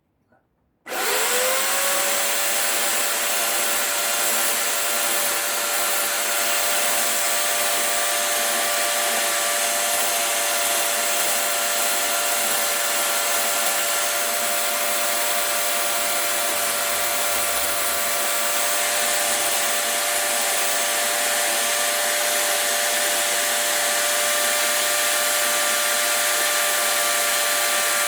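Dremel rotary tool with a carbide carving bit spinning up about a second in, then running at a steady high speed as it grinds away wood.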